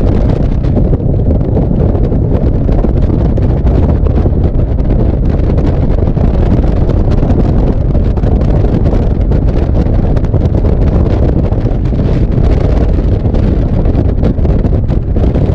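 Loud, steady wind buffeting the microphone aboard a bass boat moving at speed.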